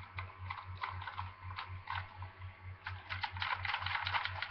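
Plastic clicks and ratcheting of a M.A.S.K. Switchblade toy vehicle's moving parts being worked by hand: scattered single clicks, then a quick run of rapid clicks about three seconds in.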